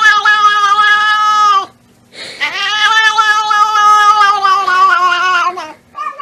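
Domestic cat giving a weird, drawn-out meow: two long, steady yowls, the first ending about a second and a half in and the second lasting over three seconds and dipping slightly in pitch as it ends.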